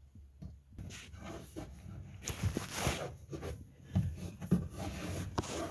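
Scratchy rubbing and handling noise of Velcro strips being pressed and smoothed down by hand onto a kayak's textured plastic floor, with a louder rasp between two and three seconds in.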